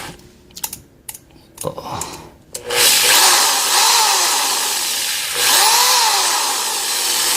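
A few handling clicks, then a cordless electric drill's motor runs from about three seconds in, its pitch rising and falling twice as the variable-speed trigger is squeezed and eased.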